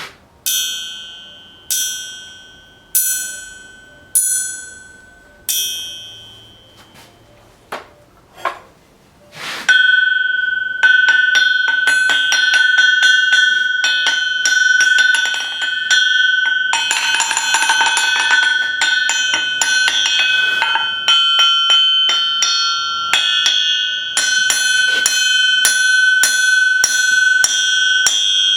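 596-pound German industrial knifemaker's anvil struck with a hammer, ringing high and clear. First come about five single blows a little over a second apart, each ringing out and fading. After a few lighter taps, a quick run of blows several a second keeps the anvil ringing steadily to the end.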